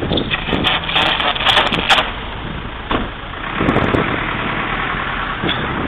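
Crackling electric arcing between a trolleybus's trolley-pole shoes and the iced-over overhead contact wire, a run of sharp bursts over the first two seconds: the ice breaking the contact. After that, a steadier low hum with a few smaller crackles.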